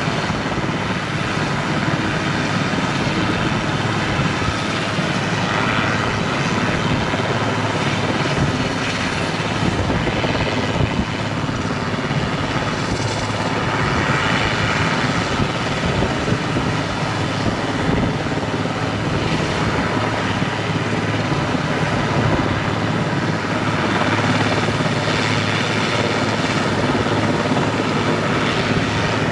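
Coast Guard Super Puma helicopter hovering low: a steady rotor and turbine noise with a steady low hum, holding level throughout.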